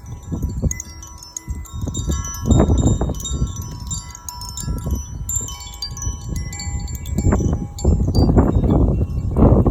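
Zaphir 'Sunray' chime ringing, its tuned metal rods struck repeatedly by the clapper so that many clear, shimmering tones overlap and die away. Under the ringing there are surges of low rumbling noise, loudest about two and a half seconds in and again near the end.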